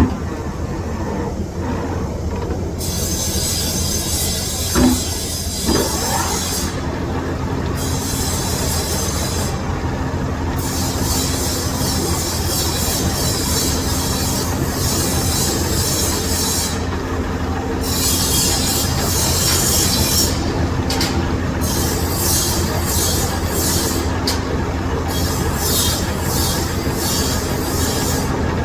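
Lathe turning hardened steel with a cubic boron nitride (CBN) insert: a steady machine hum under a high, hissing cutting noise that starts about three seconds in and breaks off briefly several times. Two light knocks come about five seconds in.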